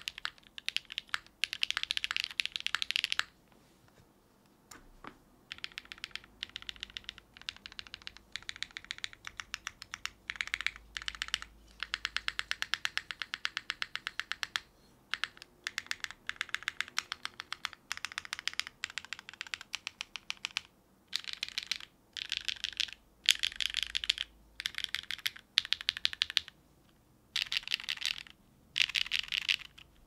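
Typing on a Geonworks F1-8X V2 mechanical keyboard with lubed Geon Black switches, an aluminium plate, O-ring strip mounting and GMK keycaps, with no dampening: fast runs of keystrokes broken by short pauses, with a longer pause a few seconds in.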